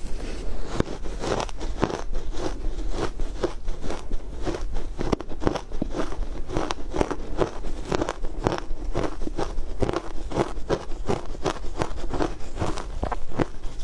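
Chewing a mouthful of shaved ice dusted with matcha powder: a steady run of crunches, about two a second.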